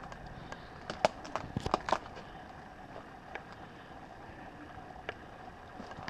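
Footsteps crunching on leaf litter and loose rock, with a cluster of sharp crackles about a second in and a few single ones later, over a faint steady hum.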